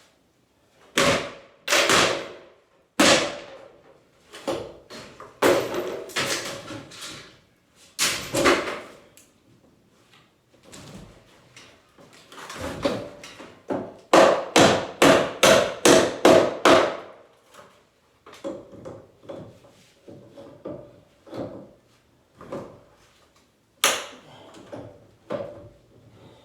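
Demolition hammering: a few heavy separate blows, then a quick run of about a dozen strikes at roughly four a second about halfway through, then lighter knocks.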